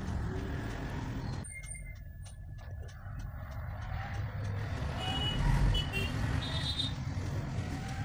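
Motor vehicle engine rumble, swelling to its loudest about five and a half seconds in, with a few short high beeps.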